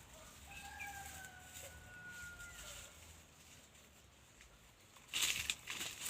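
A rooster crowing at a distance: one long drawn-out call that sags slightly in pitch toward its end. Near the end comes a louder burst of rustling and crackling, like dry plants being handled.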